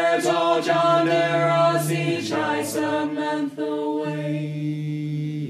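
A small ensemble of mixed voices singing held notes together in chord, with a low sustained drone underneath and a few hissed consonants.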